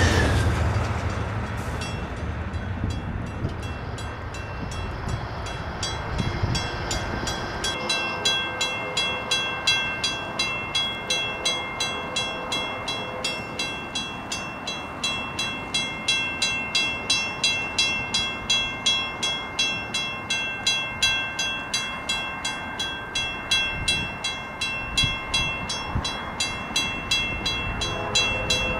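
Railroad grade-crossing warning bell ringing in fast, even dings with the gates down, signalling an approaching train; it grows louder about eight seconds in. At the start the last of a passing passenger train rumbles away.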